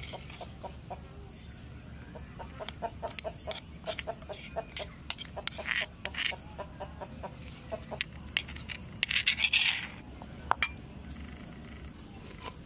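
Chickens clucking in short, repeated notes, with a louder, harsher burst a little past nine seconds in.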